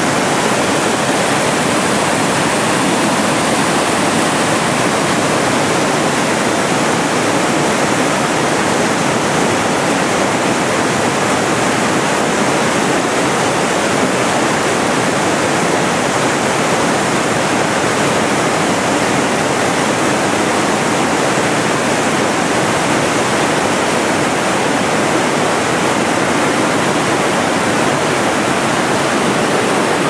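Low, wide river waterfall and rapids: a high volume of water pouring over rock ledges and churning into white water, a loud, steady rush.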